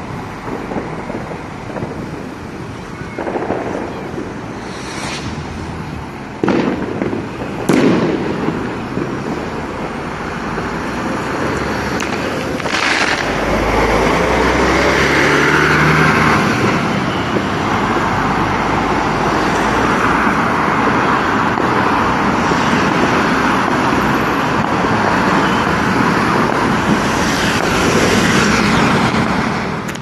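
Several firework bangs go off in the first few seconds, the loudest about eight seconds in. From about thirteen seconds in, a Setra coach's engine and tyres on the wet road make a long loud rush as it drives close past, fading just before the end.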